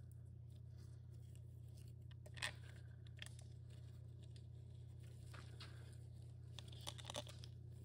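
A few faint clicks and ticks of small metal parts and bolts being handled on an automatic transmission's aluminium valve body, the sharpest about two and a half seconds in and a short cluster near the end, over a steady low hum.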